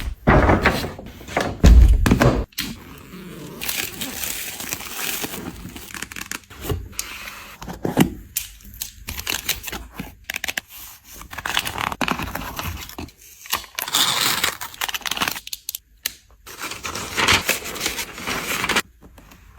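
Packaging being torn and handled by hand: irregular crinkling, tearing and rubbing noises, with a loud knock about two seconds in.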